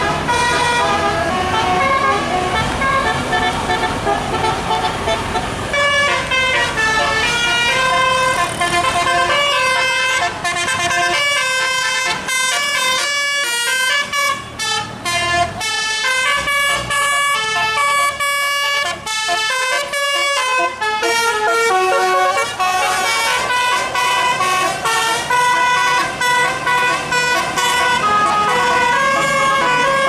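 Tour buses' 'telolet' musical air horns, a set of roof-mounted horn trumpets, playing a tune in quick stepped notes almost without a break, over the bus engines.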